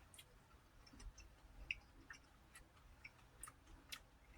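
Faint, irregular wet clicks of a mouth chewing a cherry tomato, about one a second.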